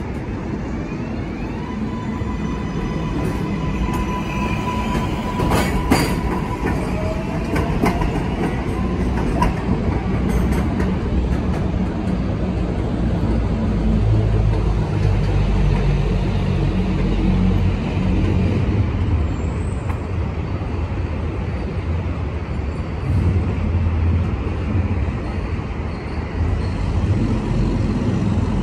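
New York City subway trains on elevated track, giving a steady low rumble of cars rolling on the rails that grows heavier about halfway through as a train comes in. A steady high tone sounds for the first few seconds, and a few sharp clicks come around the sixth and ninth seconds.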